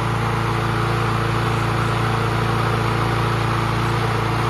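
Walk-behind gas lawn mower's small engine running at a steady speed.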